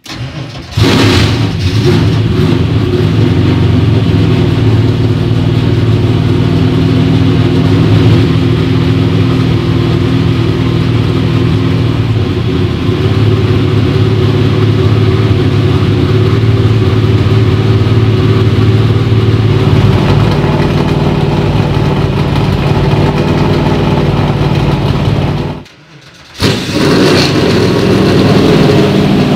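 A Ford FR9 V8 of an 800-plus-horsepower NASCAR race car fires about a second in, then runs loud and steady. Near the end the sound drops away for under a second and comes back running.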